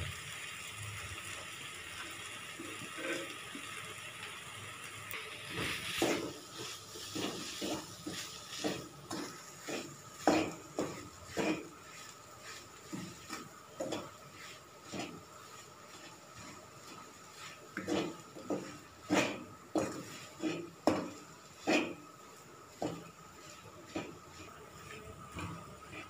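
A wooden spatula scraping and knocking against a metal kadhai while it stirs and mashes boiled potatoes into ground soya chunks. There is a faint steady hiss at first, then from about six seconds in the knocks come short, sharp and irregular, several in quick bunches.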